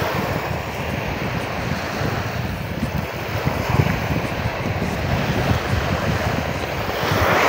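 Small waves breaking and washing up a sandy beach, with wind buffeting the microphone; a wave washes in louder near the end.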